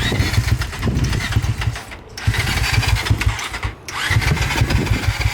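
Electric starter cranking a cold off-road engine in three bursts with short breaks between them. The engine catches near the end and settles into a steady idle.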